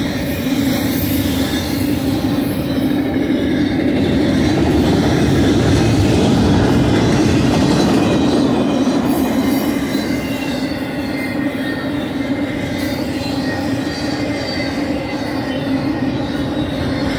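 Intermodal freight train cars rolling past at close range: a steady rumble of steel wheels on the rails, with faint thin high tones over it.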